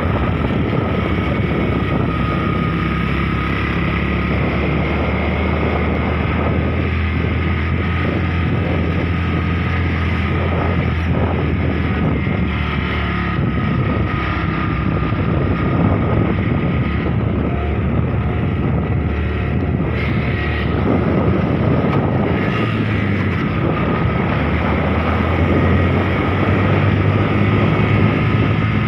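Motorcycle engine running at a steady cruising pace while riding, with wind noise on the microphone.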